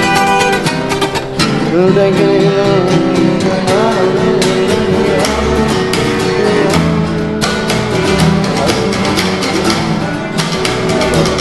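Background music: a Spanish-language song with guitar and a singing voice.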